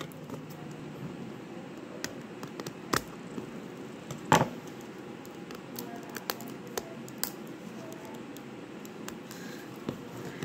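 Fingernails picking and peeling at the foil wrapper of a surprise egg and the shell of a surprise ball: scattered small clicks, taps and crinkles, with one sharper click about four seconds in.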